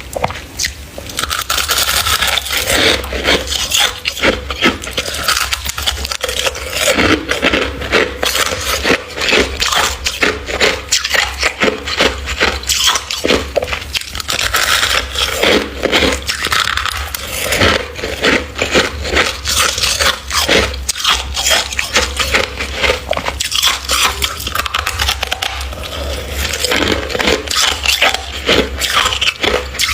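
Close-up crunching and scraping of freezer frost, scooped by hand and bitten, as a dense, rapid run of crisp crunches that does not let up.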